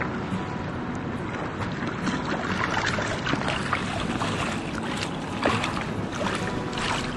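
Flowing river water, then from about two and a half seconds in, repeated splashing as a brown trout thrashes at the surface and is scooped into a landing net, with one loudest splash past the middle.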